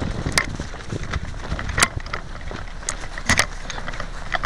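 Several sharp snaps at uneven intervals, two of them close together about three seconds in, over rustling and handling noise.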